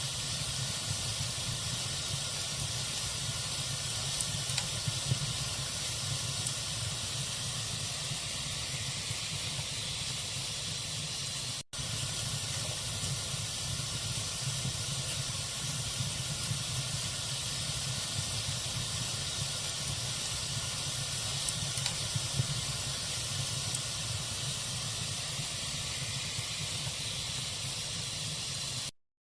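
Log fire burning with a steady hiss and a few small crackles and pops. The sound drops out for an instant about twelve seconds in and cuts off to silence just before the end.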